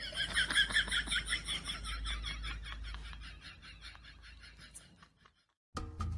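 A cat's rapid chattering call, about six short chirps a second, fading and stopping about five seconds in.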